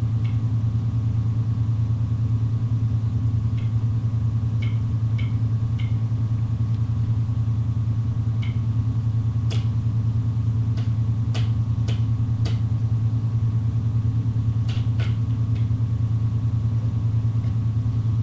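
A steady low hum with a fast flutter in it, and faint short clicks scattered over it, several close together about ten seconds in and again near fifteen seconds.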